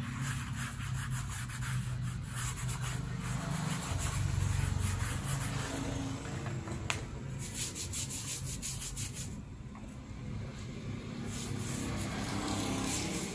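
A glue brush scrubbing rapidly back and forth over a sole sheet, spreading shoemaker's glue, in three spells of quick strokes. A low steady hum runs underneath, and there is a single sharp tick about halfway through.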